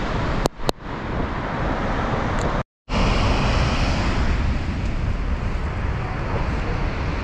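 Wind buffeting the microphone over the steady rush of heavy surf on a rocky coast. Two sharp clicks come just after the start, and the sound cuts out completely for a moment about three seconds in.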